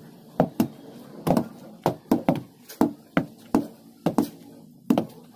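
Wooden hand tampers pounding loose fill soil to compact it: a run of irregular thuds, about two or three a second.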